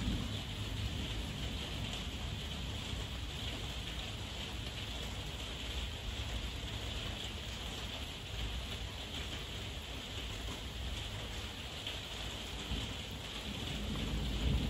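Heavy rain falling steadily in an even hiss, with a low rumble of thunder swelling briefly in the middle and building again near the end.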